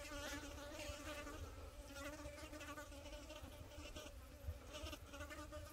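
Faint, steady buzzing of a flying insect, over a low rumble.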